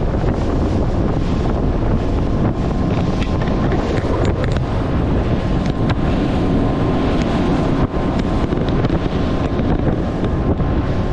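Small boat running at speed across open water, with heavy wind buffeting the microphone and water rushing past the hull.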